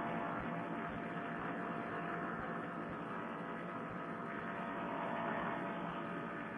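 Paramotor trike's engine and propeller running steadily in cruise flight, heard through a Bluetooth headset microphone that gives it a narrow, telephone-like sound.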